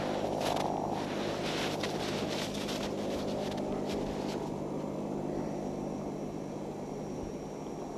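Distant helicopter droning steadily and slowly fading as it flies away down the gorge. A few sharp clicks come in the first half.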